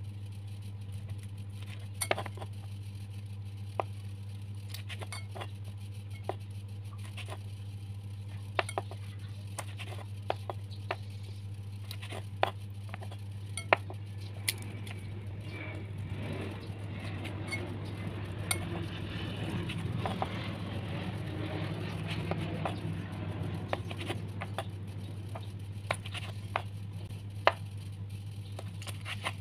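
Kitchen knife cutting salted squid on a wooden cutting board: irregular sharp knocks of the blade striking the board, over a steady low hum. There is louder handling noise for a stretch in the middle.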